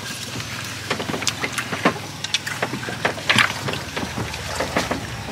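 Irregular clicks, knocks and rattles of a mesh fish trap and its bamboo stick being handled and taken apart in a small wooden boat.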